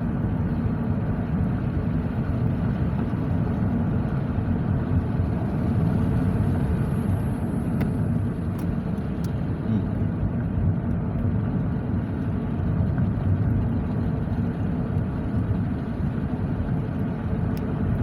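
Wind buffeting the microphone: a steady low rumble that does not let up.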